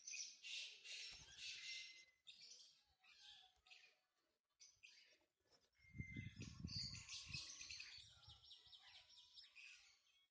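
Mynas chirping and calling in short, repeated bursts, faint, with a low rumble about six seconds in.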